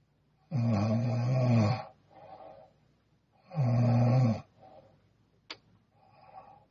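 A sleeping young woman snoring: two loud snores, each about a second long, with softer breathing between them and a short click near the end.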